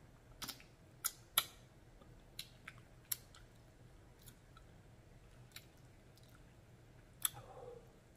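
A person chewing chicken feet close to the microphone: scattered sharp, wet mouth clicks and smacks, with a louder click near the end.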